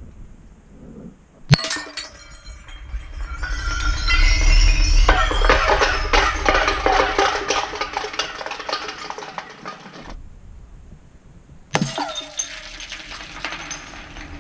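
Something dropped down a deep, narrow pipe: a sharp hit, then a long rattle of knocks against the pipe walls with a hollow ringing, building and then fading over several seconds as it falls. A second sharp hit and clatter comes near the end.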